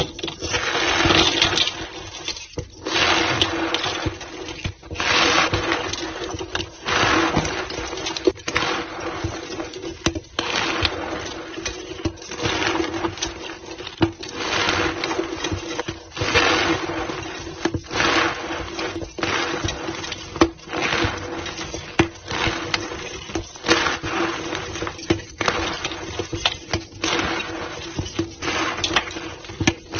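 Reformed white gym chalk blocks being crushed, giving repeated crunchy, squeaky bursts about every one to two seconds over a steady low tone.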